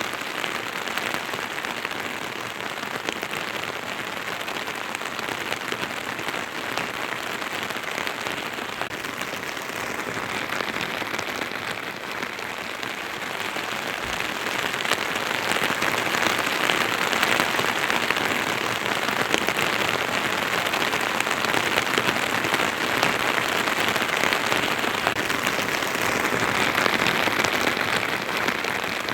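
Steady rain falling, a dense even hiss of drops that grows somewhat heavier about halfway through.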